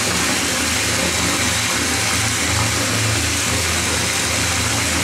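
Bath tap running steadily into a filling bathtub, the water pouring into foaming bubble bath with an even rushing hiss over a steady low rumble.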